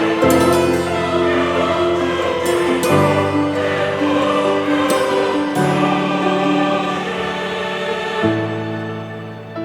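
Background music: choral voices holding long sustained chords over a low accompaniment, the chord changing every few seconds.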